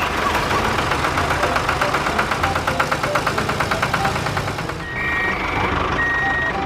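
Construction vehicle engine running with a rapid, even chug, then a reversing alarm starts beeping about once a second near the end.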